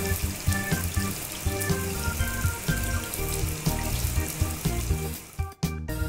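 Pressure-washer water jet spraying with a steady hiss over cheerful background music; the spray cuts off about five seconds in.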